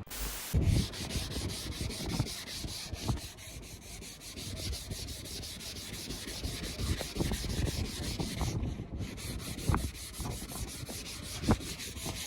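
Steady hand rubbing and scrubbing on a trim part to clean painted-over overspray off it, in quick repeated strokes, with a few light knocks of the part being handled.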